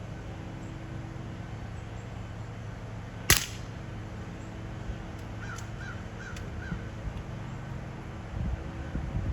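A single shot from a suppressed Beeman Commodore .25 regulated PCP air rifle, one sharp crack about three seconds in. Roughly two seconds later a bird calls four times in quick succession. A steady hum from HVAC units runs underneath, and wind rumbles on the microphone near the end.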